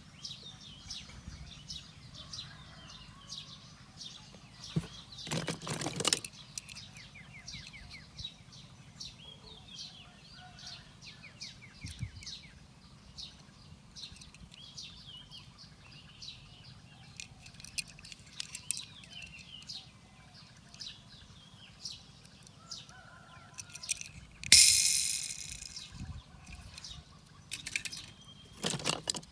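Wild birds chirping and singing, many short high calls throughout, over a faint low hum. A few louder rushes of noise break in, one about five seconds in and the loudest near the end.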